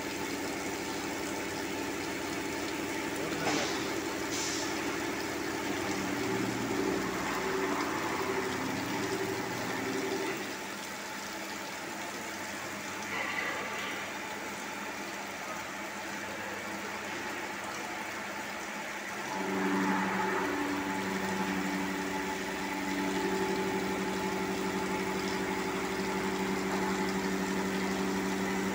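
Angle-head milling cutter on a double-column CNC machining centre cutting a cast valve body under flood coolant: a steady machine hum with several low tones. The tones drop away about ten seconds in, leaving a quieter hiss, and return a little louder around twenty seconds in.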